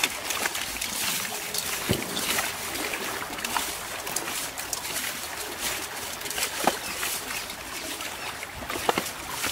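Hands washing cut fish pieces in water in a steel bowl: wet squelching and sloshing, with a few sharp clicks as the pieces knock together or against the bowl.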